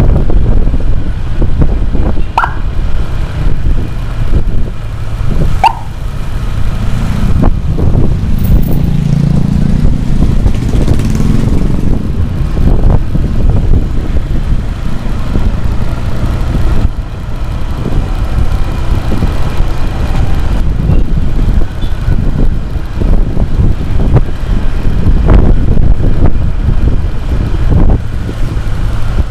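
Motorcycle riding on the road: a steady engine drone with heavy road and wind noise. Two brief falling chirps come a few seconds apart early on.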